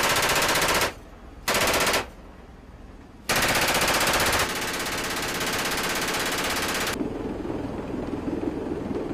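7.62 mm M240 machine gun firing from the aircraft in three bursts: about a second, a half-second burst, then a long burst of nearly four seconds. Steady aircraft engine and rotor noise follows near the end.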